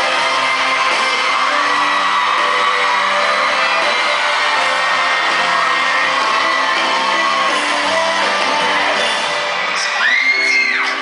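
Live pop-rock band with electric guitars playing in an arena, recorded from among the audience, with fans cheering. Near the end the band drops back and a loud, high-pitched scream from the crowd rises and falls.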